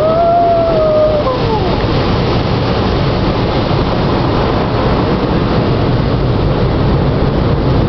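Automatic car wash water jets spraying over the car, heard from inside the cabin as a loud, steady rushing wash of noise. A brief falling pitched sound comes in the first second or two.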